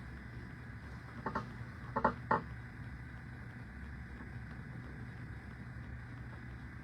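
Steady low background hum, with a quick cluster of five short sounds between about one and two and a half seconds in.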